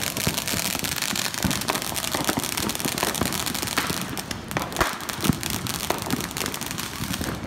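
Ground fireworks going off on the street: a dense, continuous crackle of many small pops, with scattered louder cracks and one sharper bang about five seconds in.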